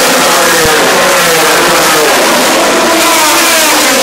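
Several 125cc two-stroke Grand Prix racing motorcycles at high revs as they pass. Their overlapping engine notes slide up and down in pitch.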